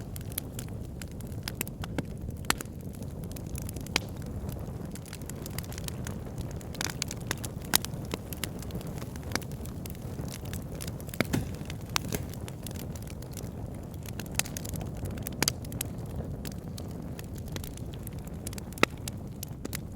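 Campfire burning with a steady low rumble and irregular crackles and pops of burning wood, a few sharper pops standing out.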